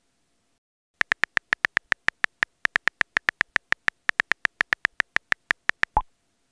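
Phone touchscreen keyboard clicks as a text message is typed, a quick even run of about seven taps a second, ending about six seconds in with a single lower pop as the message is sent.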